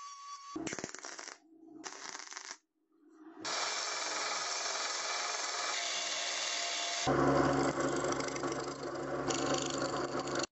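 A hand pick scraping metal around a hole in a metal lock plate in two short bursts. Then a belt grinder grinding the plate's edge with a steady rush. About seven seconds in, a drill press runs and drills through the plate, louder and with a low steady hum.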